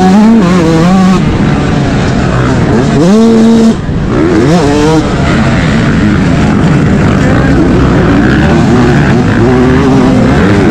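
Yamaha YZ125 two-stroke motocross engine under racing throttle, its pitch climbing and falling repeatedly as the rider accelerates and shifts. About four seconds in, a high held rev is cut off sharply before the engine picks up again.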